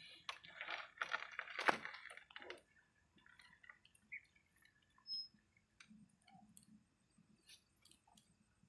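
Rustling and wet handling noise as a large catfish is gripped and lifted, loudest in the first two seconds or so, then a few scattered faint clicks.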